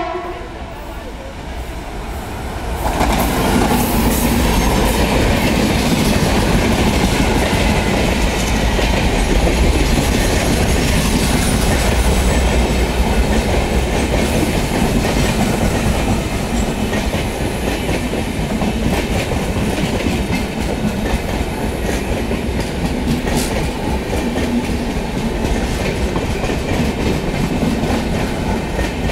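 Express passenger train of LHB coaches running through a station at speed: a steady rush and rumble of wheels on rail with rhythmic clickety-clack, which swells about three seconds in as the train draws alongside.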